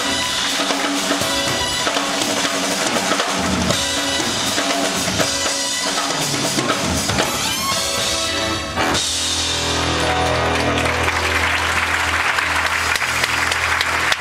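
Band music with a drum kit playing. About nine seconds in, it changes to a held low chord under an even wash of noise.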